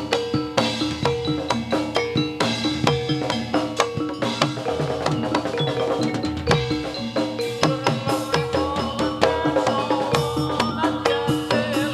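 Live Javanese gamelan music for a jathilan dance: drums and tuned metal percussion keep up a fast, steady rhythm of sharp strikes over repeated ringing notes.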